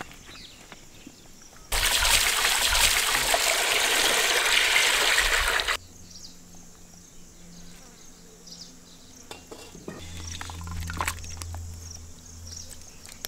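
Water pouring out of a large steel pot of boiled potatoes, a loud, even rush for about four seconds that starts and stops abruptly. Afterwards a few faint clicks and scrapes of a perforated steel skimmer against the pot.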